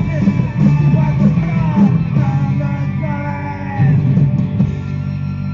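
Punk rock song playing, with a singer and electric guitars.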